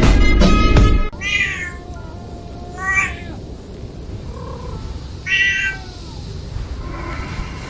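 A loud, deep music hit fades out about a second in. Then a cat meows three times in short, pitch-bending calls.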